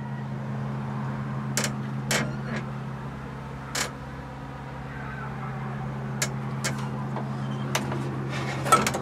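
Tractor engine idling: a steady low hum, with a few sharp clicks and knocks scattered through it.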